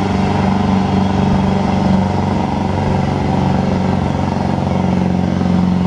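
Diesel Ford Super Duty pickup idling at the pulling sled, a steady low drone that holds one pitch.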